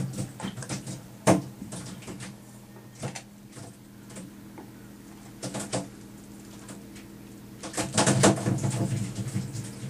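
Scattered knocks and clatter of rod, reel and gear in a boat as mackerel are jigged, with a busier, louder run of knocking and rattling about eight seconds in as a hooked mackerel is lifted from the water, all over a steady low hum.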